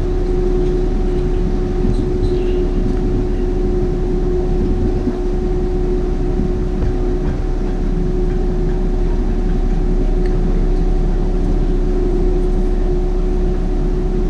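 Canal boat's engine running steadily: a constant low rumble with an unchanging droning tone on top.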